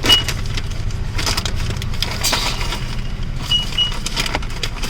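Lay's potato chips being bitten and chewed, a string of sharp crunches and crackles over a low steady rumble.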